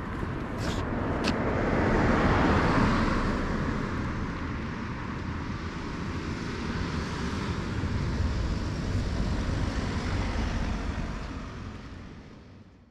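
Road traffic going by: the noise swells as a car passes about two to three seconds in and again more gently later, over a steady low rumble, then fades out at the end.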